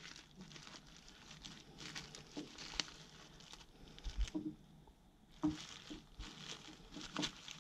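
Faint handling noise from a new ignition coil pack and ignition control module being worked by hand while the connector tangs are bent over: crinkling of plastic wrap, with a few small clicks and taps.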